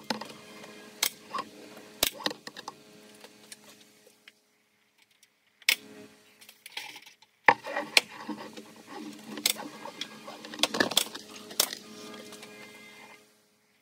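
Pneumatic nail gun firing nails into pine soffit boards overhead: a string of sharp, irregular snaps, with short silent breaks between bursts.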